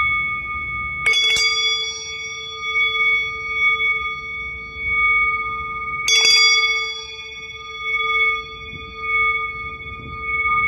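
Metal singing bowl struck twice, about five seconds apart. Each strike rings on in a long, layered tone that wavers slowly in loudness, over a faint low hum.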